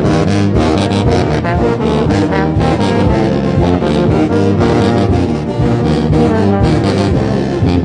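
Brass band playing: a sousaphone's low bass notes under other horns, with drums keeping time.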